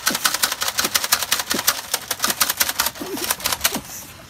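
Rapid clicking of a plastic toy gun being fired, about ten sharp clicks a second, thinning out after about three seconds.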